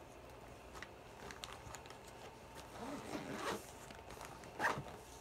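Small items being handled by hand: short rasping scrapes and a few light clicks, the loudest click about four and a half seconds in.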